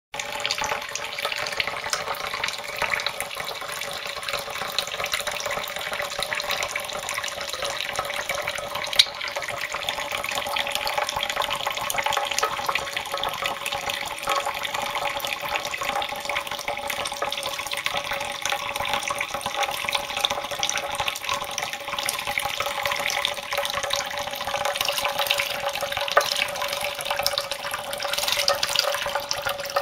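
A thin stream of tap water running steadily into a shallow ceramic dish of water while a white Java sparrow bathes and splashes in it. Two brief sharp knocks stand out, about nine seconds in and again later.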